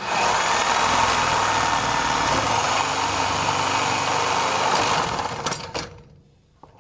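Milwaukee Sawzall 12-amp corded reciprocating saw running, its blade cutting through PVC pipe. It starts suddenly, runs steadily for about five seconds, then winds down and stops.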